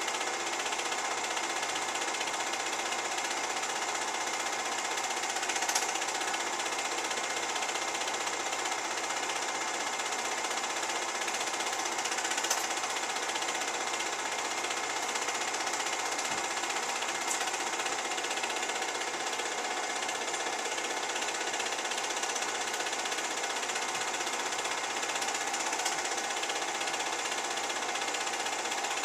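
Home-movie projector running, a steady mechanical clatter from its film-advance mechanism with a few slightly louder clicks.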